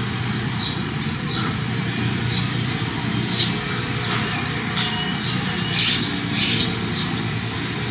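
A steady low mechanical hum, with short high chirps scattered through it about once or twice a second.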